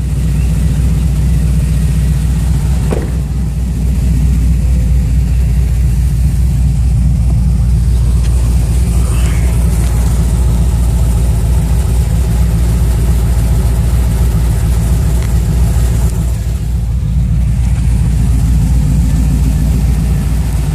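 Car engine idling steadily, with a deep, even hum that does not change in pitch.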